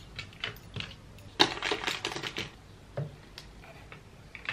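Light clicks and clatter of small items being picked up and set down on a tabletop by hand, with a busier run of taps about a second and a half in.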